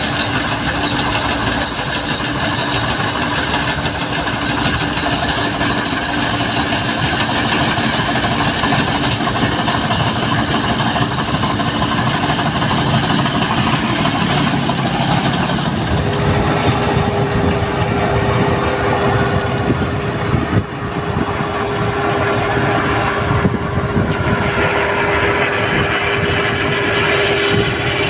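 Rice combine harvester running steadily, its engine and machinery making a continuous loud noise. A steady hum tone steps up to a higher pitch about halfway through.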